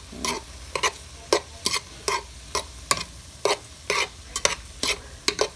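Utensil stirring and scraping frozen pasta, vegetables and chicken around a nonstick pot, about two strokes a second, over a faint sizzle as the frozen food starts to cook in a little water.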